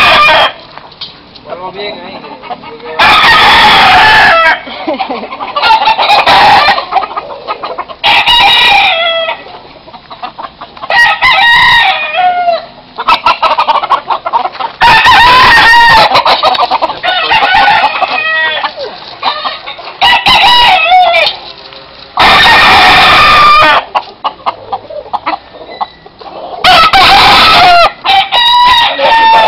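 Gamecocks crowing over and over, a long loud crow every few seconds, with clucking and shorter calls in between.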